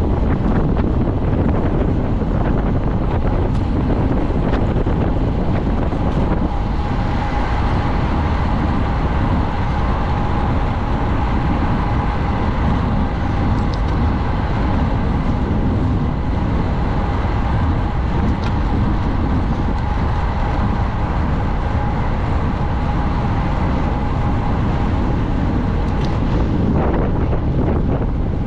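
Loud, steady wind rushing over a racing bicycle's onboard camera microphone, mixed with road and tyre noise. A faint steady whine comes in about six seconds in and fades near the end.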